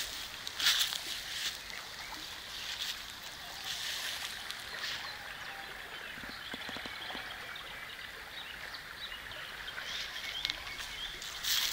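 Steady rushing of a flowing creek, with intermittent rustling footsteps through grass, bunched in the first few seconds and again near the end.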